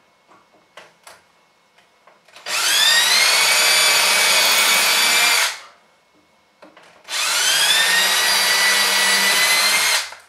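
Cordless drill running in two bursts of about three seconds each, its whine rising as the motor spins up and then holding steady, as it works into the wooden handrail through the wall bracket. A few light handling clicks come before the first burst.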